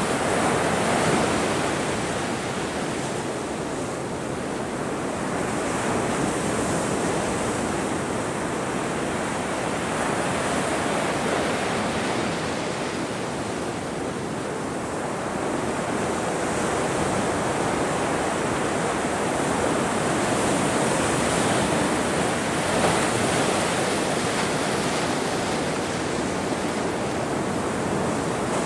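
Ocean surf: a steady wash of breaking waves whose loudness swells and eases slowly every several seconds.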